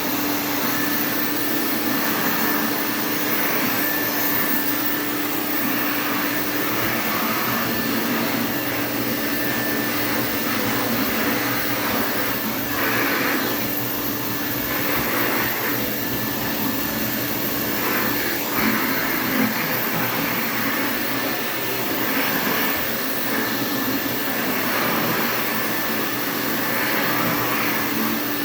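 Interstate Compact C6 vacuum cleaner running steadily while vacuuming: an even rush of air over a steady motor hum, with the airflow swelling and easing a little now and then.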